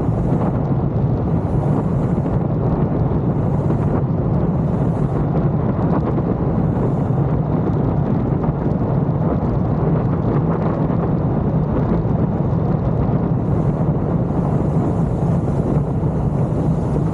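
Triumph Speed Twin 1200's parallel-twin engine running at a steady cruise, with wind rushing over the microphone.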